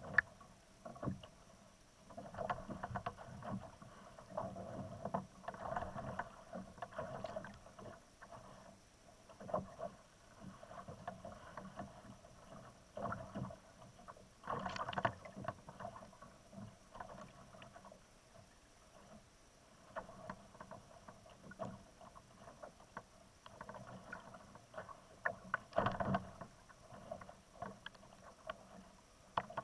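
Sea water sloshing and slapping against the plastic hull of a kayak bobbing on choppy water, coming in irregular surges with small knocks.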